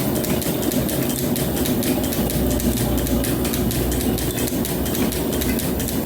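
Belt-driven metal planer running under cut on a steel bar: a steady low machine drone with a rapid clatter, the low drone swelling about two seconds in. The flat drive belt is slipping a little.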